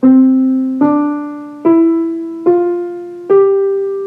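Piano tone on a keyboard playing single notes up the C major scale, C, D, E, F, G, one note a little under every second, each struck and left to fade.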